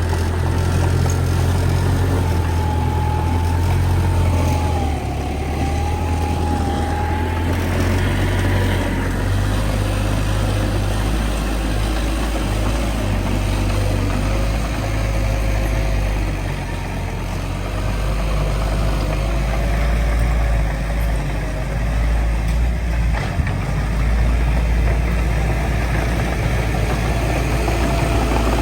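Heavy earthmoving machinery's diesel engines, from the bulldozer and dump trucks, running with a steady low rumble. A faint wavering high whine rides above it for several seconds at a time.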